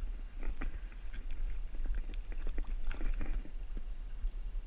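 Small splashes and wet clicks of a hand moving in shallow creek water, irregular and scattered throughout, over a steady low rumble.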